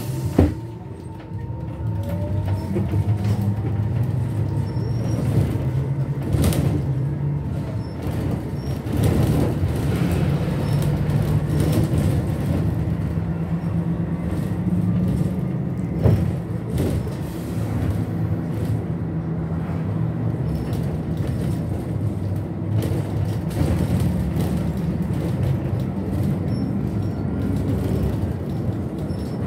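Trolleybus heard from inside the passenger cabin, pulling away from a stop: the electric drive's whine rises in pitch over the first couple of seconds. It then runs along with a steady low hum and road noise, broken by a couple of sharp knocks.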